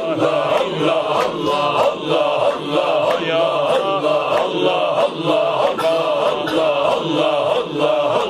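A group of men chanting a Sufi dhikr in unison, repeating a short invocation over and over in a steady, fast rhythm.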